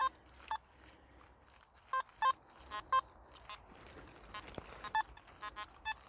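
Nokta Makro Simplex metal detector beeping through its built-in speaker as the coil is swept over the ground, with a dozen or so short, irregular blips. They are its responses to the slag and iron-working debris in the soil, which make good signals hard to pick out.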